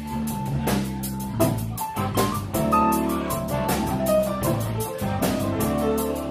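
Live rock-and-blues band playing: a drum kit keeps a busy, steady beat of cymbal and drum hits under electric guitar and keyboard.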